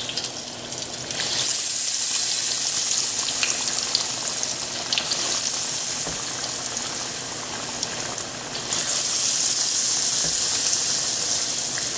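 Floured chicken pieces deep-frying in hot oil in a wok: a steady loud sizzle with crackle, the oil at frying heat. The sizzle swells about a second in and again near nine seconds in.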